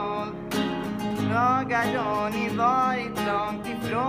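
Acoustic guitar strummed with a man singing a melody over it, the strumming picking up strongly about half a second in.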